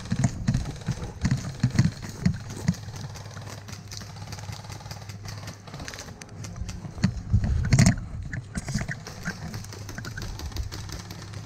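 Footsteps running over pine-needle ground, with carried gear knocking. The thumps are uneven, with a cluster of heavier thumps and scrapes around eight seconds in.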